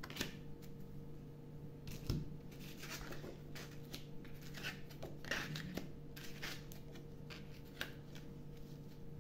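Playing cards drawn from a deck and laid down one at a time on a cloth: scattered soft slides and taps over a faint steady hum.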